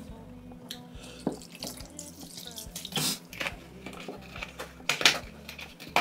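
Close-up eating of soupy instant noodles: wet slurping and mouth sounds, with a few short, sharper slurps or sips every second or two.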